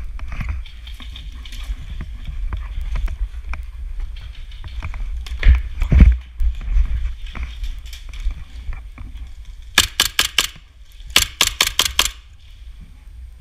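Two quick bursts of airsoft gunfire close by, about four or five shots and then about six in rapid succession, a few seconds before the end. Under them, steady wind rumble on the microphone and scattered light clicks and rustles of movement.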